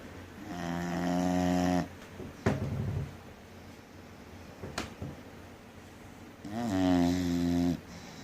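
English bulldog snoring hard: two long, pitched snores about six seconds apart, each lasting over a second, with a short rattling breath soon after the first.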